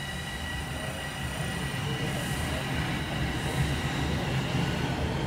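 Bombardier Toronto Rocket subway train running past the platform: a low rumble of wheels on rail that grows louder, with a steady whine from its electric traction equipment.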